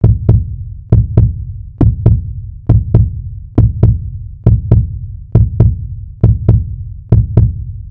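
Heartbeat sound effect: deep double thumps, lub-dub, repeating steadily a little less than once a second.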